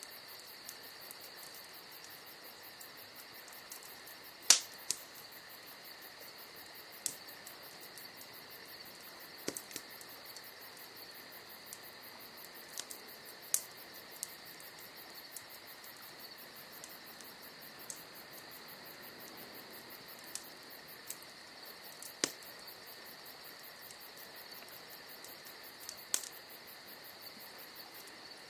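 Wood campfire crackling, with sharp pops from the burning logs every few seconds, the loudest about four seconds in, over the steady high trilling of crickets.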